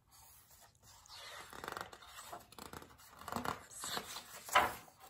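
Paper rustling and sliding as a page of a large hardcover picture book is turned by hand, with a sharper, louder flick of the page about four and a half seconds in.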